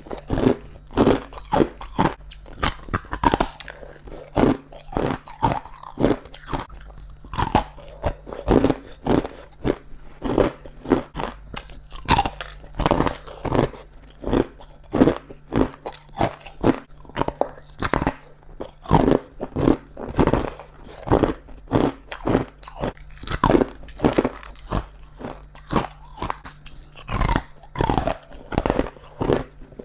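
A person biting and chewing hard ice, with loud crisp crunches about twice a second. A faint steady low hum runs underneath.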